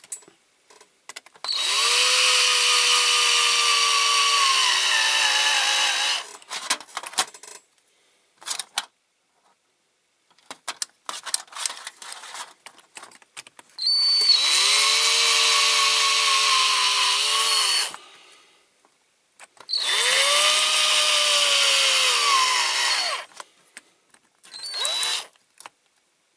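Small electric drill running in three long bursts and one short one near the end, its motor whine sagging in pitch toward the end of each run, with clicks of handling in between: drilling out the rivet of a diecast toy lorry with a bit slightly bigger than the pilot hole.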